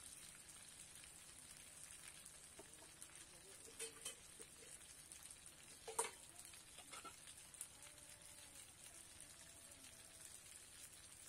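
Chicken pieces and grated coconut deep-frying in plenty of oil in a wok: a faint steady sizzle, with a few sharp pops, the loudest about six seconds in.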